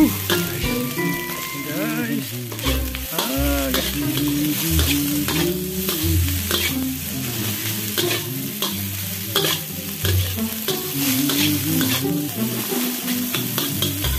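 Metal spatula scraping and tapping against a stainless-steel wok while egg fried rice is stir-fried and sizzles in the pan, with background music underneath.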